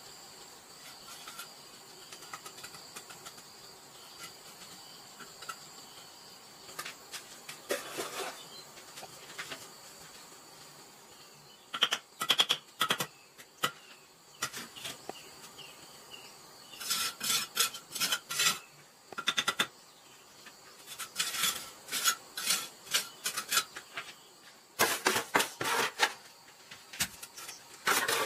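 Insects chirping steadily in a thin high tone at first; from about twelve seconds in, bricklaying takes over: several bursts of rapid hard clinks and scrapes of bricks and mortar being set and tapped into place.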